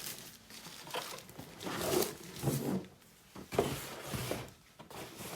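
Cardboard and plastic packaging rustling and scraping in short bursts as a boxed speaker is handled and lifted out of its box.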